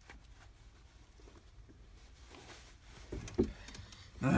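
A van's inside door handle and lock knob being worked by hand to get a stuck door open: a few short clicks and knocks after about three seconds of near quiet.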